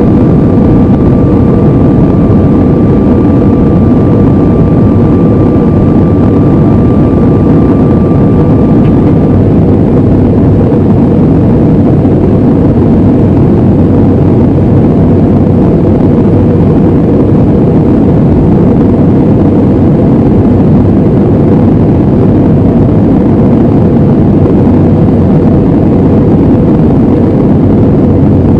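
Steady engine and airflow noise inside the cabin of a Sukhoi Superjet 100 airliner with its SaM146 turbofans running. A thin steady whine over it cuts off about nine seconds in.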